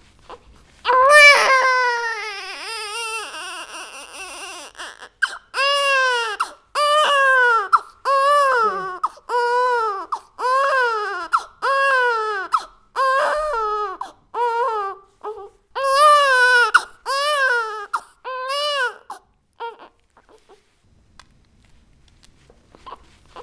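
Baby crying hard: a long wail, then a run of short cries that rise and fall in pitch, about one a second, breaking off a few seconds before the end.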